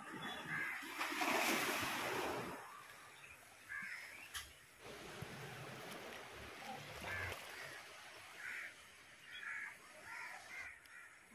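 Steady wash of sea surf and water on a rocky shore, with a loud rush of water near the start and crows cawing several times in the background.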